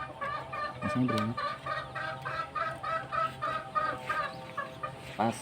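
Chicken clucking in a steady series of short calls, about three a second, that stop about four and a half seconds in.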